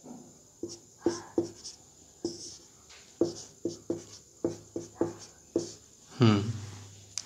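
Dry-erase marker squeaking and scratching on a whiteboard in a string of short strokes as a word is written by hand. A short vocal sound from the writer comes about six seconds in.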